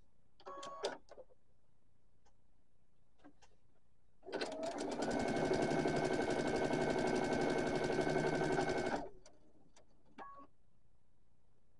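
Electric sewing machine stitching a seam in one steady fast run of about five seconds, the rapid needle strokes carrying a steady motor whine. A few short clicks come before it starts and again after it stops.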